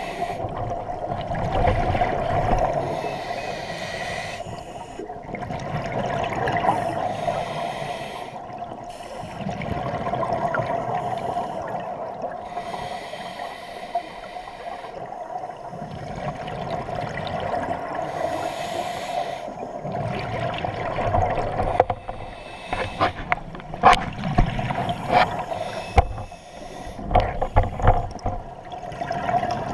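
Scuba regulator breathing heard underwater through a camera housing: a hiss on each inhale alternates with a low rush of exhaled bubbles every several seconds, over a steady drone. Several sharp knocks and clicks come in the last several seconds.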